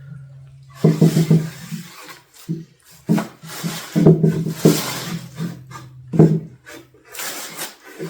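Tack cloth being slid and wiped over a freshly sanded wooden tabletop: several separate soft rubbing strokes on the bare wood, with a low steady hum underneath.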